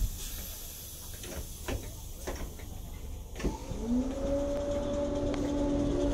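Merseyrail Class 508 electric train starting to move: a few knocks, then about three and a half seconds in, a motor whine rises in pitch and settles into a steady hum that grows louder as the train gets going.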